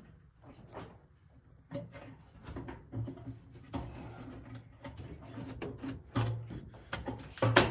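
Scattered knocks, scrapes and rubbing from handling a drop-ceiling light fixture and its ceiling panels, with two sharper knocks, one about six seconds in and a louder one near the end.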